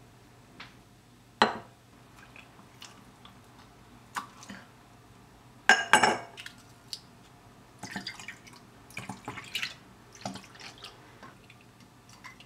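A sharp knock about a second and a half in, then ice cubes dropped into a double-walled glass cup, clinking loudly a little before halfway. Many smaller clinks and dripping liquid sounds follow as a drink is poured over the ice.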